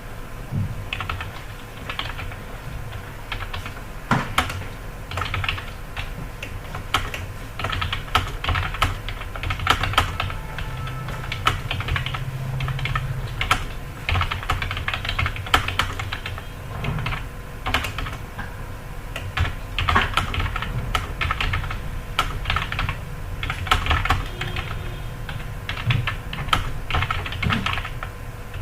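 Fast, continuous typing on a computer keyboard: a dense, uneven stream of key clicks with brief pauses between bursts.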